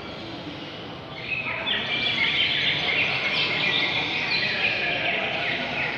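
Several caged songbirds singing at once, a dense overlapping mix of quick chirps and falling whistled notes that swells about a second in.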